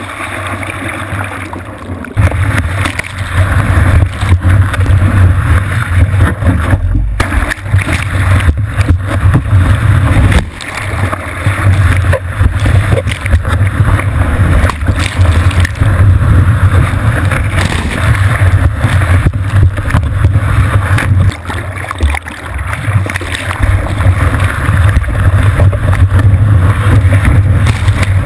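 Water rushing and splashing over a board-mounted GoPro Hero2 in its waterproof housing, with wind buffeting the case as the board is paddled and ridden through a wave. It is a loud, steady rush with a heavy low rumble that dips briefly a few times.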